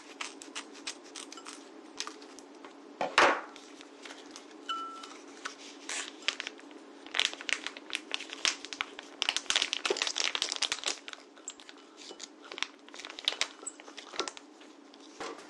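Material such as plastic wrapping being crumpled and crinkled by hand in a run of irregular crackles, with a louder knock about three seconds in, over a steady low hum.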